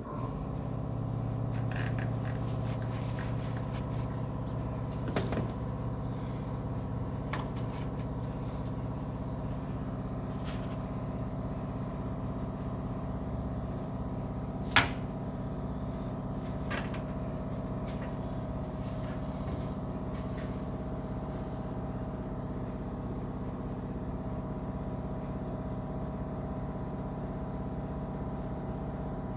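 A steady machine hum that starts abruptly and holds an even pitch, with a few light clicks and one sharp click about fifteen seconds in.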